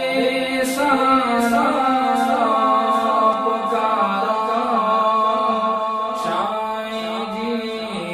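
Devotional chant-like singing: a voice holding long, slowly gliding notes over music, with faint taps about every three-quarters of a second during the first few seconds.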